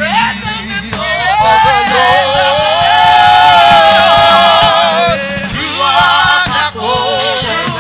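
Gospel worship singing with instrumental backing: sung voices hold long, wavering notes over a steady low accompaniment with a light beat.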